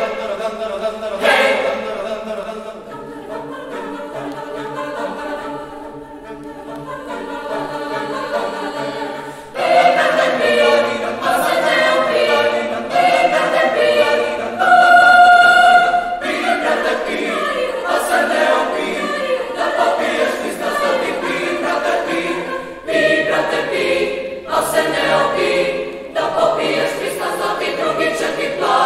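Mixed youth choir singing a cappella in several parts, soft at first and then swelling louder about ten seconds in.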